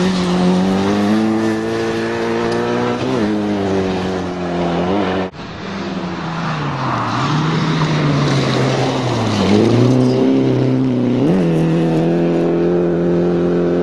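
Rally car engine under hard driving, its pitch climbing and then dropping sharply at gear changes, falling away as it slows, and rising again on the throttle. There is a brief break in the sound about five seconds in.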